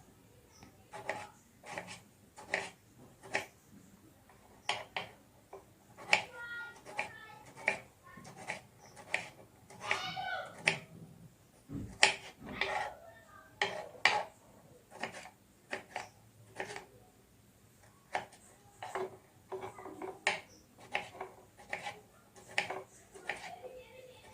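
Kitchen knife chopping vegetables on a cutting board: sharp, irregular chops about one or two a second.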